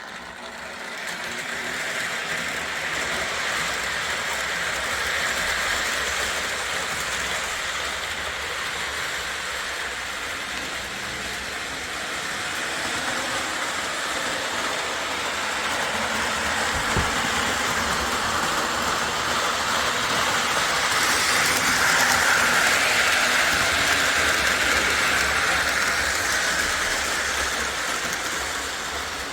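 Lionel Alco FA-1 O gauge diesel locomotive running on three-rail track while pulling a train of ten cars, with a steady motor whir and a rumble of wheels on the rails. The sound grows louder as the train comes nearest, about two-thirds of the way through, then eases off. A single sharp click sounds about halfway through.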